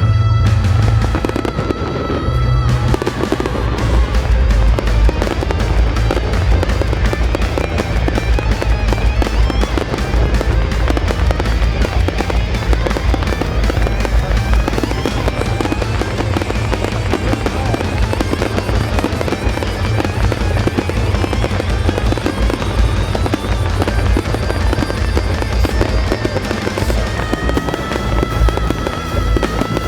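Fireworks display firing shells in rapid succession: a dense, continuous barrage of bangs and crackling with a heavy low rumble, over music.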